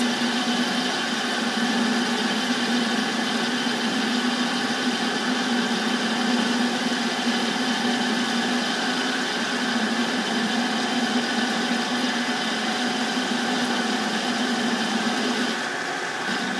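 Metal lathe running at a steady speed, its motor and gear train giving an even hum with a whine above it. The higher hiss eases a little near the end.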